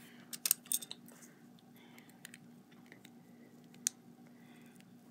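Plastic Lego bricks clicking as they are handled and pressed together: a quick cluster of clicks in the first second, then a single sharp click nearly four seconds in.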